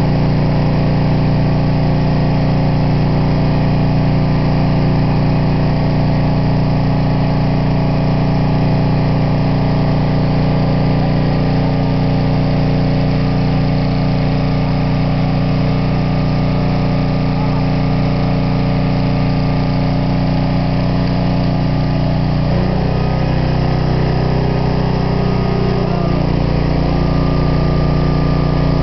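Engine of a Lincoln Electric engine-driven portable welder running steadily while powering a welding arc. Its pitch shifts for a few seconds about three-quarters of the way through, then settles again.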